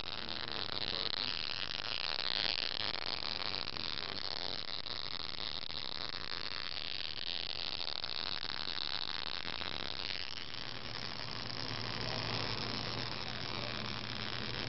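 Small spark gap made of two screws, fed by a flyback transformer off a 12-volt battery, arcing with a steady hissing buzz. About ten seconds in, a low hum and a faint crackle join in. It is a modest spark, about what a flyback alone gives.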